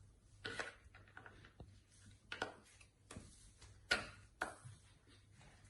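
Scattered clicks and knocks of an artificial Christmas tree's legs and base being handled while a leg is forced into the base, about five in all, the loudest about four seconds in.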